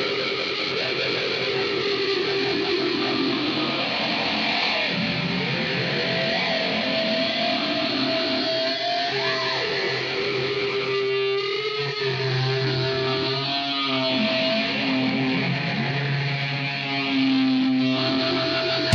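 Background rock music led by electric guitar, with held notes and occasional bends in pitch.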